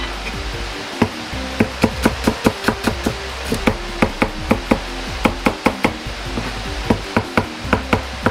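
Kitchen knife chopping garlic on a plastic cutting board: quick, even knocks of the blade on the board, about three a second, starting about a second in.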